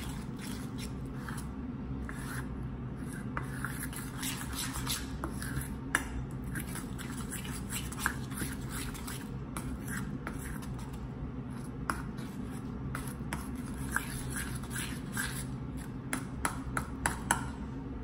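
A spoon stirring and scraping a thick flour-and-water sourdough starter mix in a stainless steel bowl, with irregular scraping strokes and sharp clinks where the spoon hits the metal, several in quick succession near the end. A steady low hum runs underneath.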